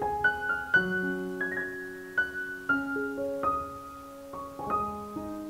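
Background music: a slow solo piano playing single notes that ring on and overlap as they fade.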